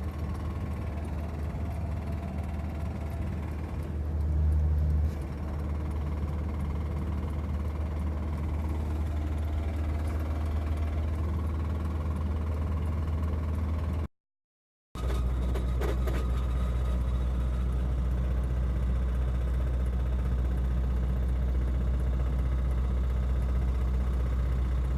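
Honda D16Y7 1.6-litre four-cylinder engine running steadily while the car is driven, a low drone that gets briefly louder about four seconds in. The sound cuts out for about a second around halfway. The engine has a spun rod bearing.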